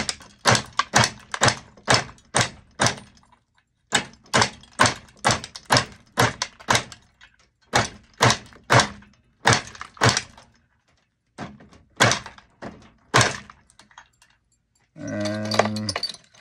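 Hand-turned flywheel glass cane cutter chopping a thicker glass cane into murrini slices: a sharp crack with each cut, about three a second, in four runs with short pauses between.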